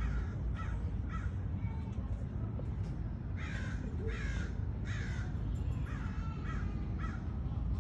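An animal, most likely a bird, calling in a series of short calls: about eight over several seconds, several of them in quick succession, over a steady low rumble.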